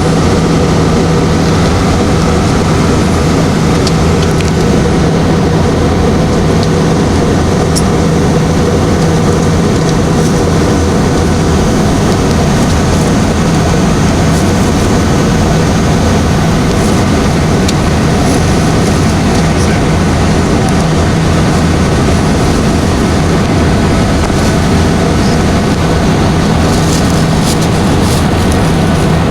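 Steady jet engine and airflow noise inside an airliner cabin during descent: a loud, even rush over a constant low hum, with a few faint ticks late on.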